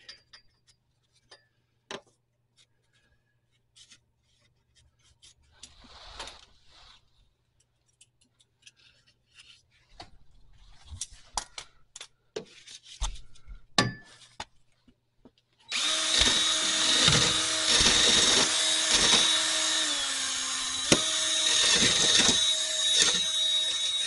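Light clicks and taps of metal parts being handled, then about sixteen seconds in a cordless drill starts and runs steadily with a wire brush against the car's underside. Its pitch sags for a moment under load about twenty seconds in, then comes back up.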